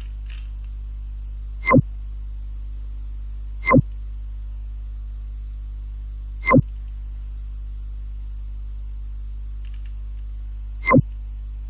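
Steady electrical mains hum with four short, loud clicks, each falling quickly in pitch, spaced irregularly a second or more apart: mouse clicks while opening folders in a file dialog.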